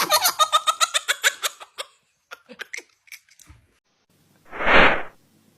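Comic sound effects: a fast chattering run of short, high, squeaky notes that slows and fades over about two seconds, then a short whoosh near the end.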